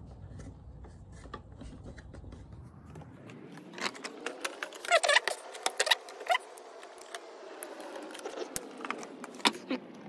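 Copper earth conductors being handled and joined in a Wago lever connector: light metallic rattling and a series of sharp clicks starting about four seconds in.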